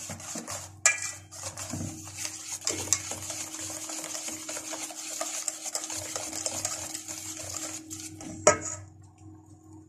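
Kitchen handling sounds: a metal fork scraping and clinking in a plastic tub of ground meat, and a gas stove's burner knob being turned and lit, with a sharp clack near the end. A steady low hum runs underneath.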